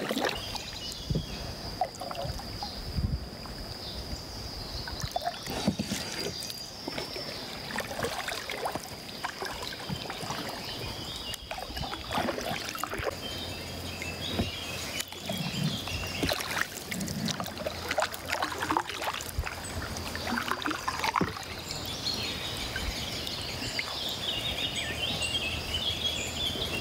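Kayak paddling: double-bladed paddle blades dipping and dripping in the water with small splashes and knocks, stroke after stroke. Birds chirp in the reeds about halfway through and again near the end, over a thin steady high tone.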